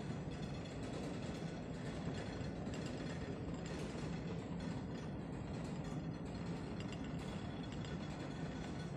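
Steady shipboard machinery noise: a constant low hum with a fine, continuous rattle.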